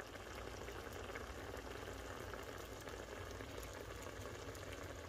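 Saucepan of cranberry sauce (cranberries in sugar, orange juice and water) bubbling at a boil, a steady, faint fine bubbling.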